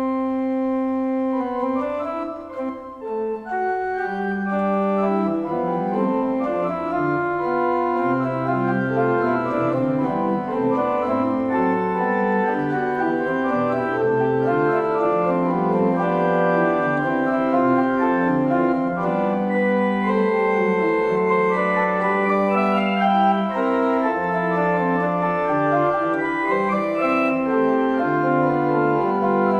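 Steiner-Reck pipe organ starting to play after a pause, first a single held line, then more voices entering and moving against each other in sustained notes.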